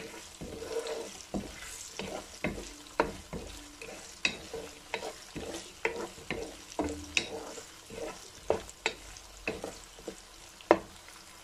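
Sliced onions, garlic, ginger and whole spices frying in oil in a karahi with a light sizzle, while a wooden spatula stirs them and knocks against the pan about once or twice a second at an uneven pace.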